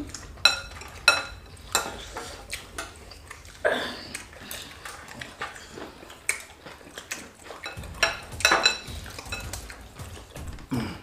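Spoons and forks clinking and knocking against dishes as people eat quickly, in irregular sharp taps about once a second, with several close together about eight seconds in.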